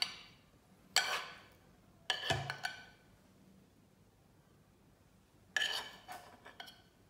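Metal spoon clinking against a pan and a ceramic bowl while gnocchi are spooned out: three short clinks, about a second in, about two seconds in, and again past the middle.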